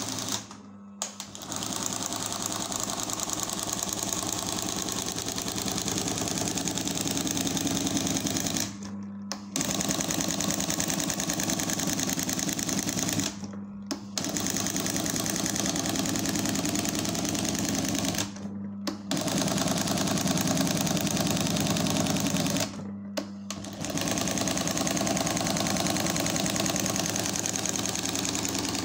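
Cornely RT embroidery machine running: a fast, even needle clatter over a steady motor hum, halting briefly about every four to five seconds.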